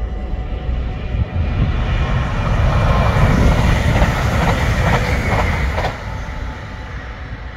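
NS electric passenger train passing close by. It grows louder to a peak a few seconds in, with the wheels clicking over the rail joints, then fades as it moves away.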